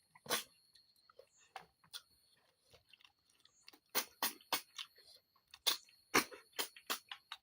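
Snails being eaten close to the microphone: short sharp slurps and clicks with chewing in between. They come sparsely at first and thick and fast from about four seconds in.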